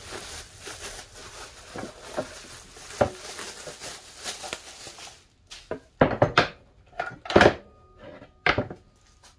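Clear plastic bag crinkling and rustling as a power saw is pulled out of it. After about five seconds the rustling stops and several sharp knocks follow as the saw is set down and handled on a table.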